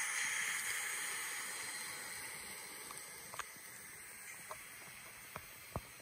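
Model train running: a soft hiss from the locomotive's motor and wheels on the track as it pushes the passenger cars, fading over the first few seconds as it draws away. A few faint clicks in the second half.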